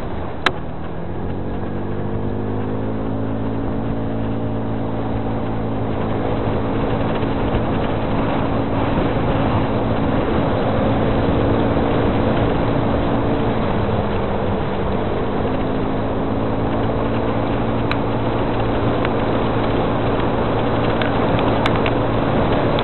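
An engine running steadily, its pitch rising over the first few seconds, then dipping briefly a little past halfway and climbing again, as when a vehicle speeds up and changes gear. A sharp click sounds just after the start.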